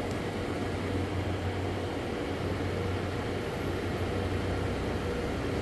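Steady hum and whoosh of a PC's cooling, its fans and water-cooling pump running without change while the RTX 3080 Ti graphics card is under full stress-test load. A low hum sits under an even hiss.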